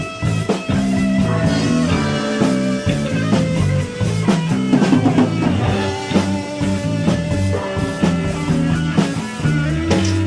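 Background rock music with drums, bass and guitar.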